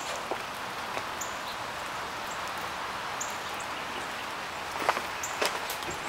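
Outdoor ambience: a steady hiss with a small bird chirping briefly every second or two, and a few footsteps on wet leaves and gravel, louder near the end.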